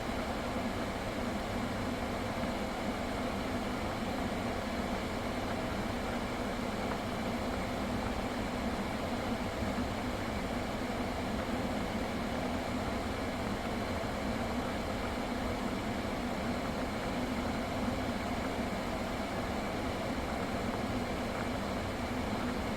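Steady hum and fan noise of a Kia K5 running with its air conditioning on, its AC system freshly recharged with refrigerant and compressor oil.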